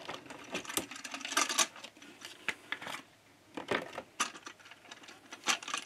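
Plastic toy train coaches handled in a plastic packaging tray: irregular light clicks, taps and rattles of plastic on plastic.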